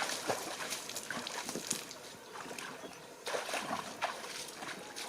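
Water splashing and sloshing in irregular strokes, with a louder cluster of splashes about three and a half seconds in.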